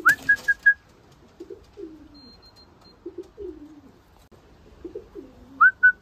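Racing pigeons cooing in low, falling notes, about once a second. Near the start a pigeon flaps its wings as a short rush of noise, and short high whistled notes sound near the start and again near the end.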